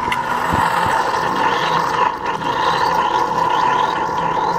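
Keurig single-serve pod coffee maker brewing: its pump runs with a steady hum while coffee streams into a clay mug.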